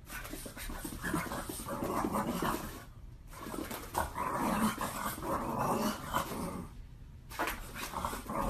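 Small dog growling in play, in three long stretches broken by short pauses about three and seven seconds in.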